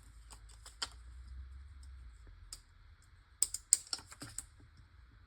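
Light clicks and taps of small plastic craft pieces being handled. They come scattered and irregular, with a quick cluster of louder clicks a little past the middle.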